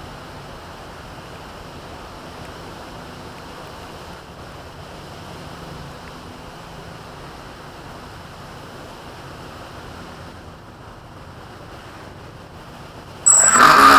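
Steady outdoor rushing noise, like wind on the microphone. Near the end comes a loud, harsh burst under a second long that opens with a thin high-pitched tone.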